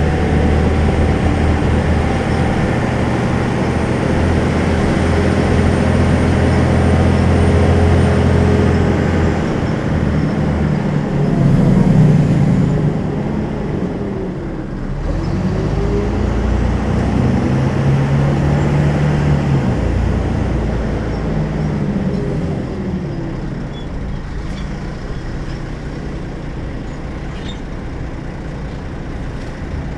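Volvo B12M bus's diesel engine with a ZF gearbox running under way: a steady low drone, then about ten seconds in the engine note rises and falls in several sweeps, and it settles to a quieter, even run for the last few seconds.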